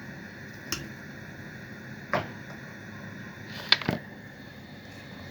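A few sharp knocks of a stirring utensil against a saucepan as lemon cream is stirred over the heat, over a steady low background hiss.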